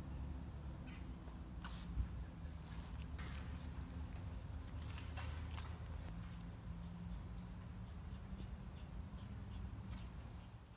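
Insects trilling steadily outdoors, a high, fast-pulsing tone, over a low rumble of wind and handling, with a single knock about two seconds in.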